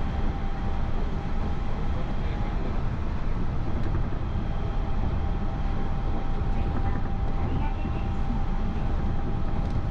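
Yurikamome rubber-tyred automated guideway train running at a steady speed, heard from inside the car: an even rumble of the rubber tyres on the guideway, with a thin steady tone above it.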